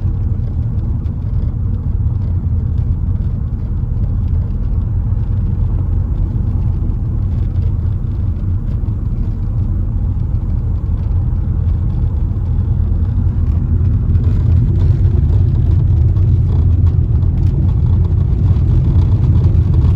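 A car being driven, giving a steady low rumble of engine and road noise that grows a little louder in the last third.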